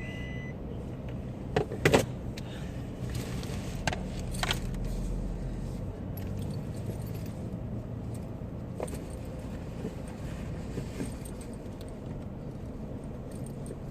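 Car engine running steadily with a low hum, with a few sharp clicks and rattles on top; the loudest clicks come about two seconds in.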